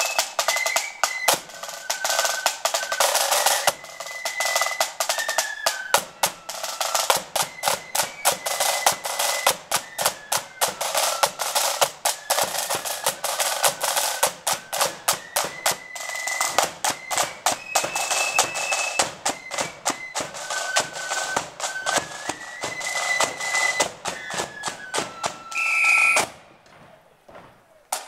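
Marching flute band playing a tune: flutes carry the melody over rapid snare drumming and bass drum beats. The tune ends on a held high note about two seconds before the end, and the band falls quiet.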